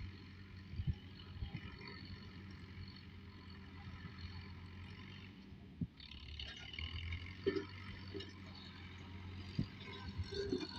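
Tractor engine running steadily, heard as a low hum with occasional knocks and rattles; it gets somewhat louder about halfway through.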